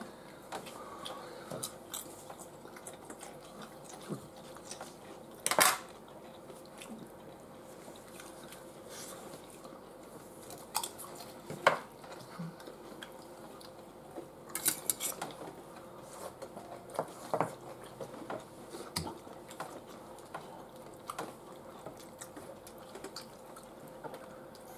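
Forks clinking and scraping on a metal baking tray of nachos, with loose clicks and crunches as the toppings and tortilla chips are picked up and chewed. A few sharper clatters stand out, about five and a half, twelve and fifteen seconds in.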